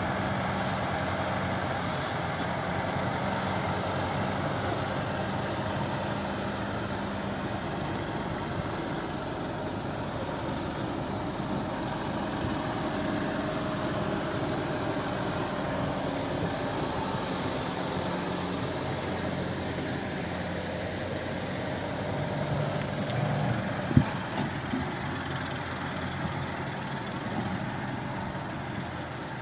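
Zyryanin-112 six-wheeled all-terrain vehicle's engine running steadily as it drives across grass toward a river crossing. One sharp knock comes a few seconds before the end.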